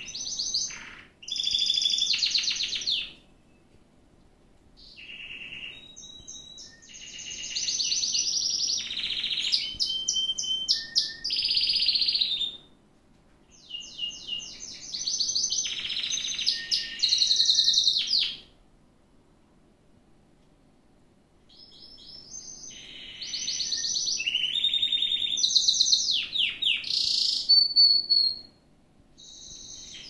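Domestic canary singing in four long song bouts of rapid trills and rolls, each several seconds long, with short pauses between them.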